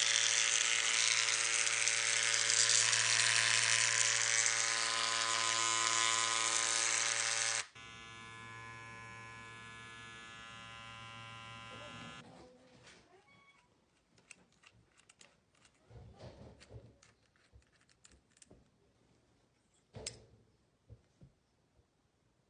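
Babyliss hair clipper running with a loud, steady buzz for about eight seconds, then dropping abruptly to a quieter buzz that stops about twelve seconds in. After it stops come scattered clicks and taps of the clipper being handled.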